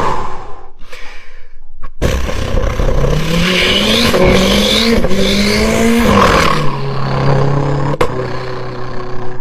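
Beatbox vocal imitation of a turbocharged car accelerating: a low engine-like drone climbs in pitch in steps, as if through the gears, with whooshing turbo-like sweeps high above it, then drops back to a steady low drone. A sharp click comes near the end.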